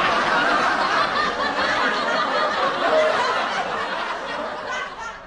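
Laughter sound effect: a dense stretch of continuous laughing that fades near the end.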